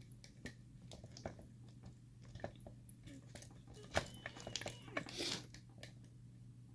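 Scattered small clicks, taps and a brief rustle of a metal padlock and tools being handled and set in a bench vise, with one sharper knock about four seconds in.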